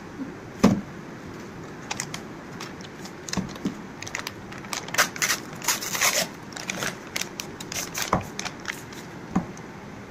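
Brown paper mailer bag being crumpled and torn open by hand: a run of crinkles and rips, densest in the middle. A sharp thump about a second in is the loudest sound.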